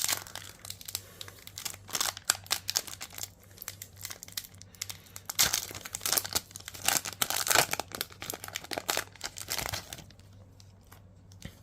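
Foil trading-card booster pack being torn open and crinkled by hand: dense, irregular crackling and tearing that dies down about ten seconds in.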